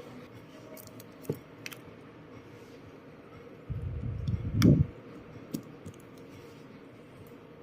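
Small clicks and taps of tools and phone parts being handled during a smartphone teardown, with a louder low thump about four and a half seconds in.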